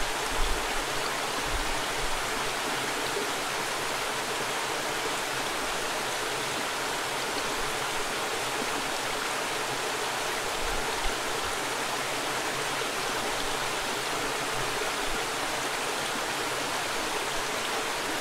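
Mountain river water rushing over rocks: a steady, even rush of flowing water.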